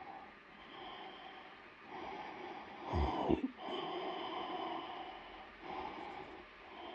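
Eufy LR30+ robot vacuum running, its motor and brushes whirring in waves that swell and fade, with a brief louder knock about three seconds in.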